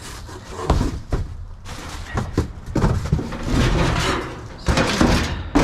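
Repeated clunks, knocks and scraping as pieces of scrap are handled and shifted about, several sharp knocks in the first half and a denser run of rattling clatter in the second half.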